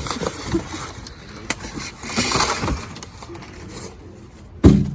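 Cardboard packaging being handled: scattered rustling, scraping and light knocks, then one loud thump near the end.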